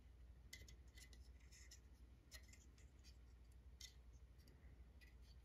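Near silence with a dozen or so faint, scattered small clicks and ticks of fingers handling and turning a telephone's printed circuit board.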